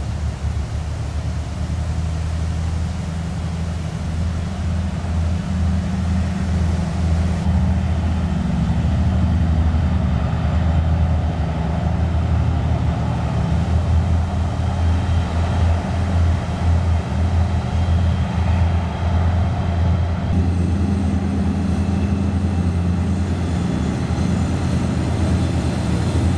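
Four-section 2TE10 diesel locomotive's ten-cylinder diesel engines working hard under load, a loud, deep, steady throb as it hauls a heavy freight train.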